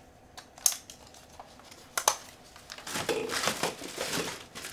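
Small, sharp clicks from handling a Canon Rebel XS DSLR as its new battery is put in, followed about three seconds in by a second and a half of crinkling handling noise.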